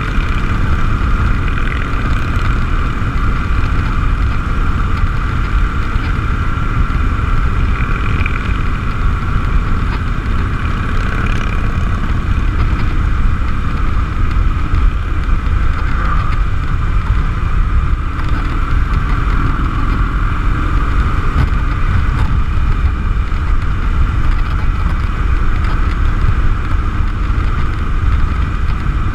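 Harley-Davidson V-twin motorcycle cruising steadily at highway speed: a constant engine drone mixed with heavy wind rush over the microphone, with no changes in pace.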